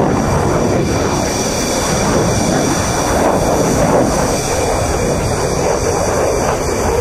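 Eurofighter Typhoon's twin EJ200 turbofan jet engines, a loud steady roar with a faint high whine over it.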